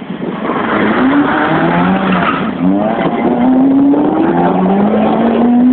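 Rally car engine revving hard as the car approaches at speed on a tarmac stage. The engine note climbs in pitch, drops back and climbs again several times as it changes up through the gears, with one long climb near the end.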